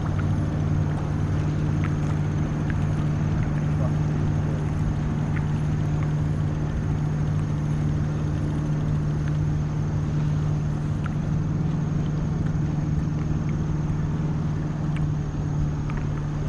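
Boat motor running steadily with a low, even hum, over the rush of water along the hull.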